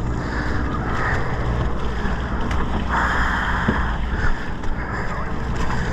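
Steady low drone of a sportfishing boat's engine under wind noise on the microphone and rushing water, with a brief louder hiss about three seconds in.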